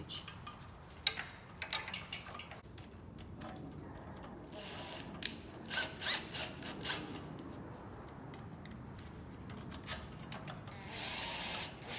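Hands working on a small generator engine: scattered light metallic clicks and taps, with a short rubbing, scraping sound near the end.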